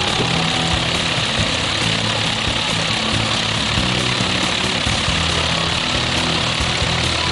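Single-engine light propeller aircraft's engine running steadily with the propeller turning, a constant drone with no change in speed.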